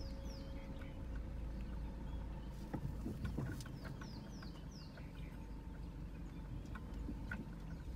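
A vehicle's engine running with a steady low rumble, while birds call in short falling whistles, a few near the start and a cluster about four seconds in. A few faint clicks come around the middle.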